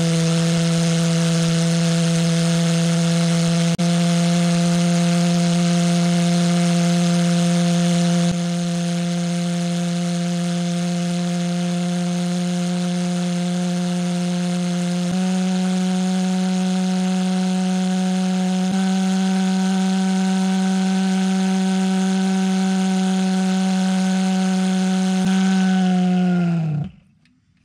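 Propane-fuelled pulse jet engine with a thermal cracker coil running with a loud, steady droning tone. Its pitch steps up twice, about halfway through and again a few seconds later. Near the end the pitch sags and the engine dies, as the propane bottle runs out.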